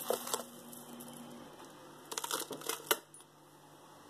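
Beaded metal chain necklace clinking as it is handled and lifted away: a few quick clicks at the start, then a cluster of jingling clicks about two to three seconds in.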